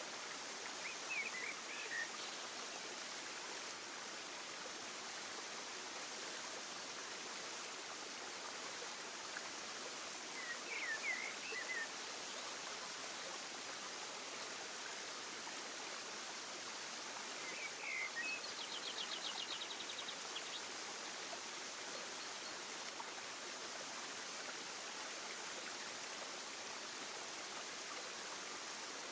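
Steady outdoor ambience of running water, an even rushing noise. A few short bird chirps come about a second in, around eleven seconds and around eighteen seconds, followed by a quick rattling trill lasting about a second and a half.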